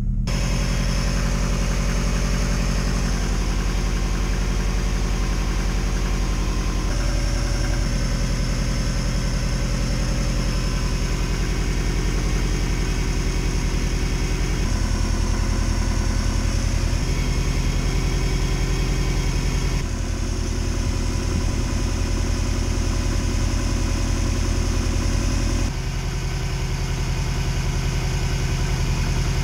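Subaru EJ20 2.0 L turbo flat-four engine idling steadily at a raised cold-start idle of about 1,300 rpm, running on freshly changed oil. Its tone shifts abruptly a few times.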